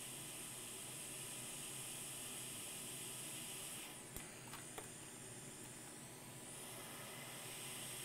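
A faint steady hiss that dips for a couple of seconds midway, with two faint clicks about four and five seconds in.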